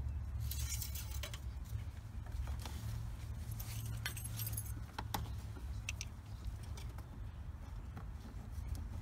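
Light metallic clinks and rag rustling from an engine oil dipstick being wiped and a fluid reservoir cap being handled, with scattered sharp clicks over a steady low hum.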